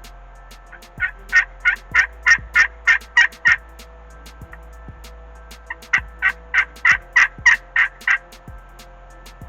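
Turkey yelping: two series of about ten evenly spaced yelps, roughly four a second, each series lasting a couple of seconds.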